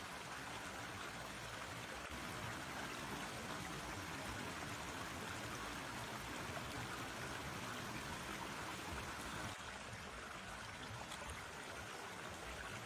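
Forest stream flowing: a steady rush and trickle of water.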